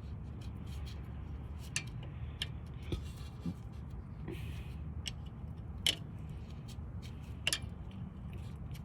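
Occasional sharp light clicks and taps of hand work on a rear brake caliper as its pin bolts are threaded back in, about five spread over several seconds, over a steady low background hum.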